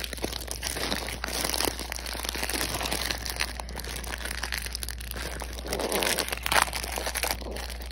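Plastic sandwich wrapper crinkling continuously, with small crackles, as it is pulled open by hand.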